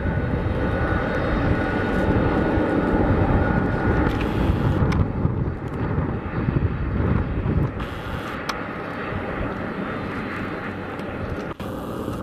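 Boeing 767-200F freighter's jet engines running at low power as it rolls along after landing, a steady noise with a faint high whine that slowly fades over the second half.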